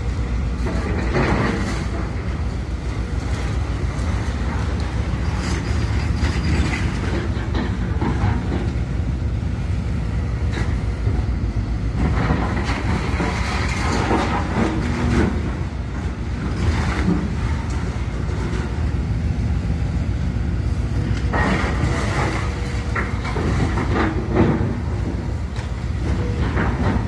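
Heavy demolition machinery's diesel engine running steadily while it tears down a damaged house, with irregular surges of crunching and rumbling debris.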